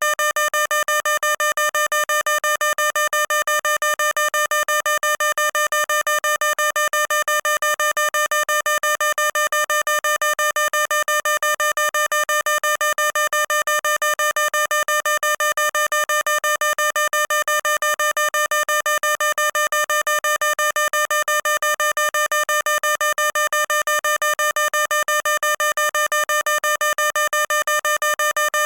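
Fire alarm sounder giving a rapidly pulsing electronic tone at one steady pitch, several pulses a second, without a break.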